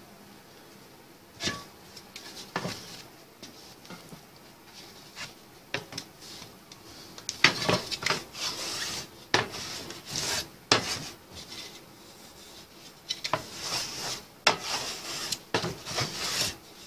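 A long aluminium profile handled on a wooden workbench top: irregular metallic knocks and scraping rubs, a couple at first, then busy runs through the second half.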